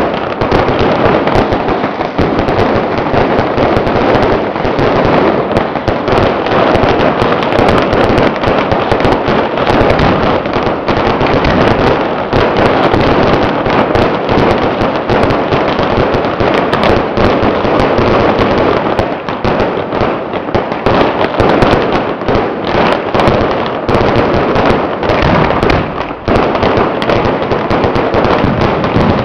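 Dense, continuous crackle of massed firecrackers going off, hundreds of sharp bangs running together without a break.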